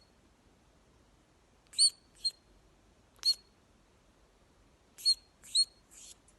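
A small pet squeaking: short, high squeaks, a pair about two seconds in, one a second later, and three close together near the end.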